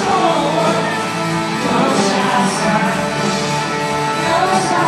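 Live country-pop band playing with singing, at a steady loud level, heard from the arena seats.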